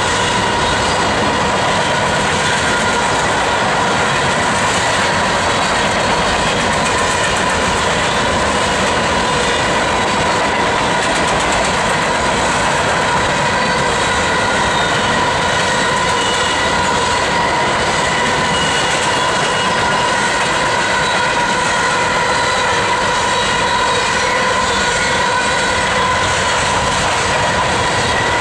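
Freight train cars rolling past, a steady loud rush of steel wheels on rail that holds even throughout.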